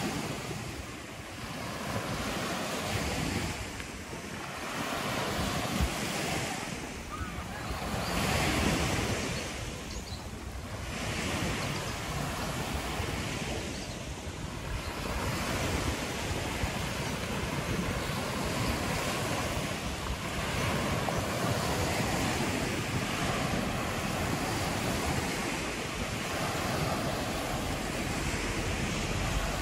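Small waves breaking and washing up a pebble beach, a noisy wash that swells and fades every few seconds, with wind buffeting the microphone.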